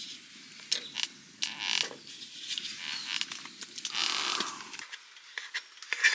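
Stainless knife and fork clinking and scraping against a metal camp plate while a pancake is cut, in short separate clicks and scrapes with one longer scrape about two-thirds through.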